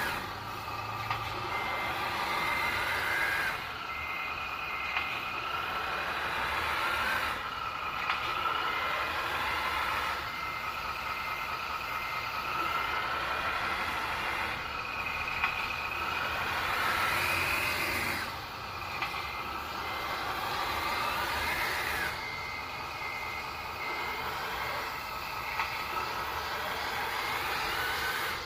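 Sound unit of a 1/14-scale radio-controlled Mercedes-Benz tractor truck playing a simulated truck engine whose note rises in sweeps as it drives, with stretches of reversing beeps and short bursts of hiss several times.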